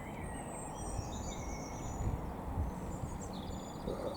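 Small birds chirping and trilling in short high calls, over a steady low outdoor rumble.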